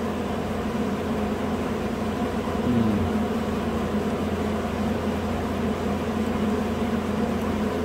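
A steady low mechanical hum, even throughout, with a brief wobble in pitch about three seconds in.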